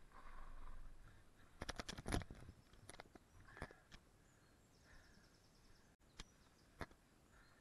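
Faint clicks and knocks from a mountain bike rolling across a gravel car park, with a quick cluster of them about two seconds in and a few single ones later. Faint bird chirps behind.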